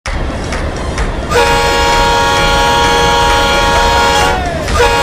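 Locomotive air horn blowing a loud steady chord for about three seconds, sagging in pitch as it cuts off, then sounding again just before the end, over a steady low rumble.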